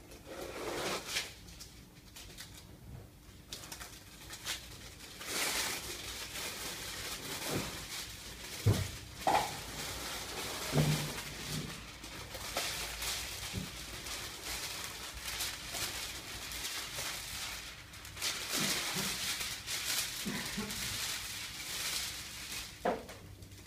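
Irregular rustling and crinkling of foam and foil sound-deadening sheets as they are handled, with scattered small knocks.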